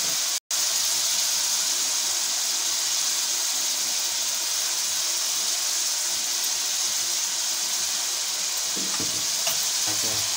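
Sliced onions frying in hot oil in a karahi, a steady sizzling hiss. The sound cuts out for an instant about half a second in.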